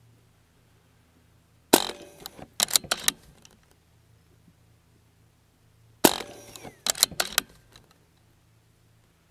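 Two shots from an unmoderated BARRA 1100Z .22 PCP air rifle, about four seconds apart, each a sharp crack followed by a quick run of clicks and rattles.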